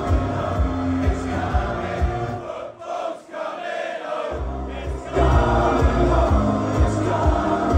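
A large crowd of football fans singing along to loud music with a heavy bass beat. The bass drops out for a couple of seconds partway through, then the music and singing come back louder.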